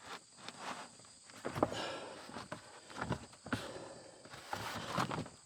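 Footsteps with scattered light knocks and rustling, irregular and uneven.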